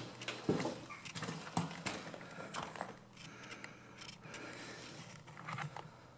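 Footsteps on a floor littered with broken plaster and debris, giving irregular crunches and clicks.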